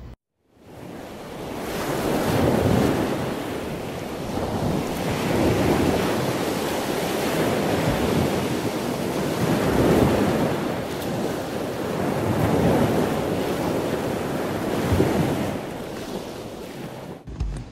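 Ocean surf: waves breaking and washing in, a steady rush that swells and eases every few seconds. It fades in at the start and stops shortly before the end.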